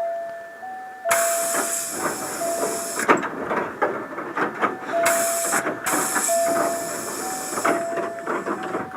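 Heard from inside a Hankyu train car, a two-tone warning bell rings in a steady alternating ding-dong. Over it come stretches of loud hissing and clattering from the moving train.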